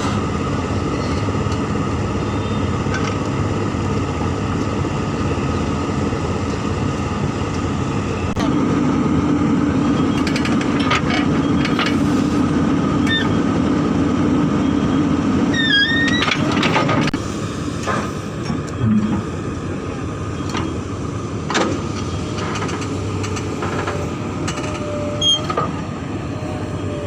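Hydraulic excavator's diesel engine running steadily, growing louder and heavier for about nine seconds from about eight seconds in as it comes under hydraulic load, with a few scattered short knocks.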